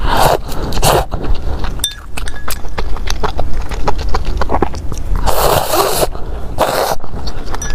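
Close-up slurping of noodles and broth, four hissing slurps (one at the start, one about a second in, and two longer ones past the five-second mark), with wet chewing and lip-smacking clicks in between.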